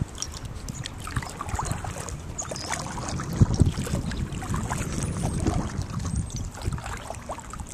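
Kayak on a river: water lapping and splashing around the hull and paddle, with uneven wind rumble on the microphone and a stronger gust about three and a half seconds in.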